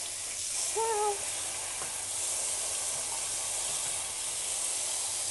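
Cold tap water running steadily into a stainless steel colander of cooked tapioca pearls, with a short wavering tone about a second in.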